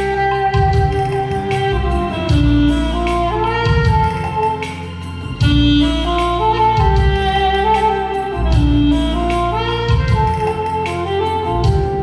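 Saxophone playing a slow melody over a backing track with a steady low drum beat.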